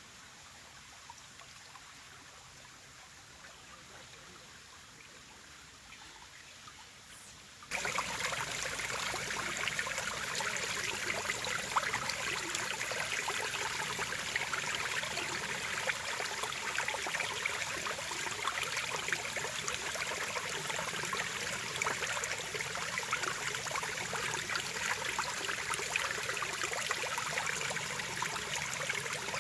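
Running water of a stream, a steady babbling flow; faint at first, then about eight seconds in it jumps suddenly to a much louder, closer rush of water.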